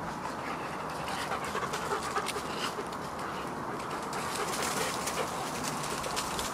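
A Dalmatian and a white shepherd dog playing rough on grass and leaf litter: scuffling paws, rustles and short clicks, with a few brief animal calls over steady outdoor background noise.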